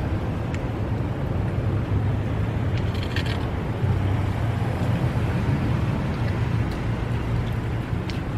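Steady low hum of traffic and idling vehicles outdoors, with a brief rustle or clicks about three seconds in.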